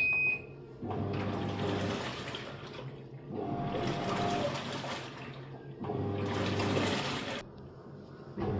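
Top-load impeller washing machine agitating: the wash plate turns in bursts of about two seconds with short pauses between them, churning the water and clothes over a low motor hum. About four bursts.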